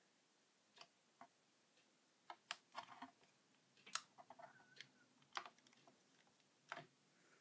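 Faint, irregular clicks of buckyball magnet spheres snapping and tapping together as strands of them are handled, about ten clicks, some in small clusters.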